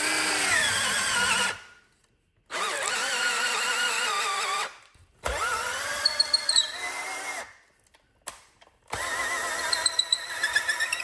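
Power drill turning a 12-inch auger bit into wood in four runs of a couple of seconds each, with short pauses between. The motor whine sags in pitch as each run starts and wavers while it cuts.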